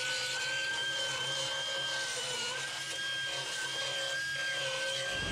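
Handheld pneumatic angle tool (air die grinder type) running at high speed with a steady high whine, dipping slightly about halfway through, as it is worked against the rusted steel of a van's rocker panel during cutting out of the rotten sill.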